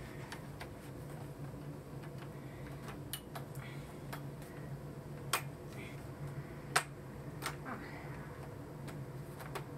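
Light clicks and taps of plastic solar-cable plug connectors and corrugated plastic conduit being handled as the panel cables are plugged together for a parallel connection. The two sharpest clicks come about five and seven seconds in, over a steady low hum.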